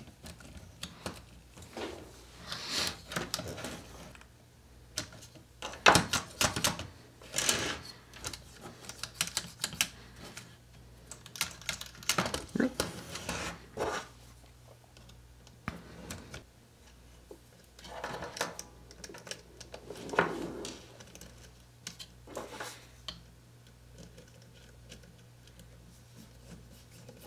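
Irregular clicks, ticks and short rattles of small parts being handled: a precision screwdriver turning the small screws that hold oil-filled shocks to the plastic chassis of an RC rock crawler. A faint steady low hum runs underneath.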